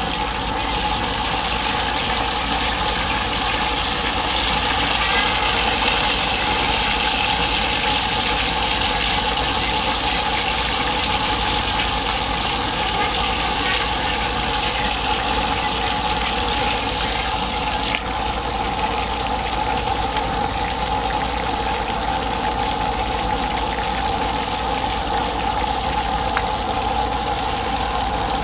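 Tilapia frying in hot oil in a pan: a steady sizzling hiss, heaviest in the first half, easing slightly after a short click about 18 seconds in.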